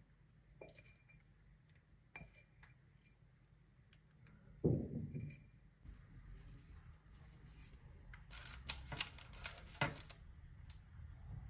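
Quiet handling of a parchment-lined baking tray: scattered small clicks and taps, one louder knock about four and a half seconds in, and a cluster of crisp paper crinkles and clicks a couple of seconds before the end, as sliced nuts are set onto cookies and the cookies are nudged into place.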